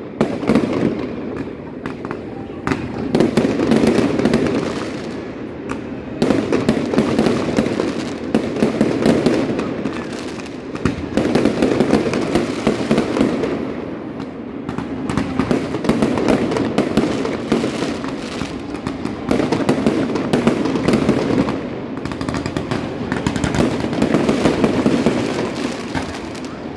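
Fireworks display going off: dense crackling and popping from bursting aerial shells and crackle stars, swelling and easing in waves every few seconds.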